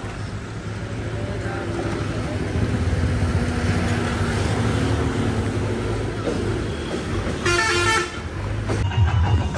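Roadside traffic noise with engines running, and a vehicle horn honking once, briefly, about three-quarters of the way through.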